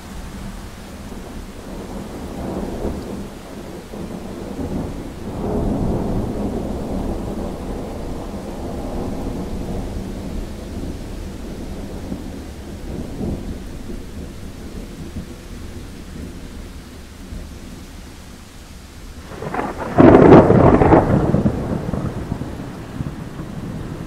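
Thunder over steady rain. A long low rumble swells and fades through the first half, then a loud thunderclap breaks suddenly about twenty seconds in and rumbles away over a couple of seconds.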